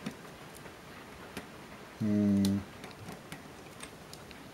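Faint scattered clicks and ticks of the Canon S2 IS camera's plastic and metal parts being handled and pried at with a plastic tool. About two seconds in there is a short, steady 'hmm' from a man's voice.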